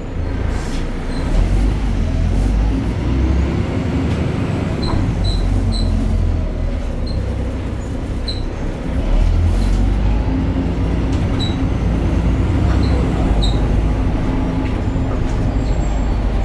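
BredaMenarini Avancity Plus city bus driving, its Deutz Euro 5 diesel engine and ZF automatic gearbox running with a deep rumble and a whine that rises and falls in pitch, with short high chirps now and then.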